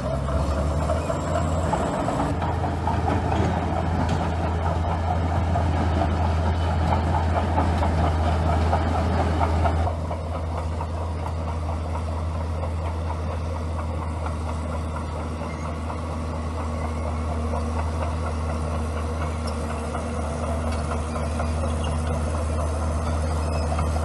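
Bulldozer's diesel engine running steadily with a low drone, louder and busier for the first ten seconds, then dropping suddenly to a quieter, even note.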